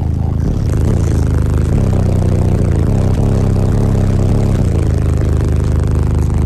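Semi truck's engine running, its pitch going up and down several times.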